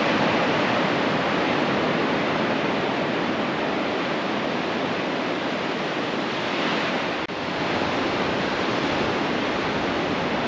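Steady rush of ocean surf breaking on a sandy beach, mixed with wind, with one brief click about seven seconds in.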